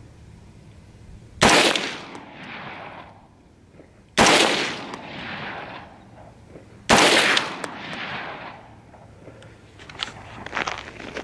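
Three single shots from an LWRC IC-DI 5.56 AR-15 fitted with a Dynamis Alliance Muzzle Thumper muzzle device, about two and a half seconds apart, each followed by a long echoing tail. A few light clicks follow near the end.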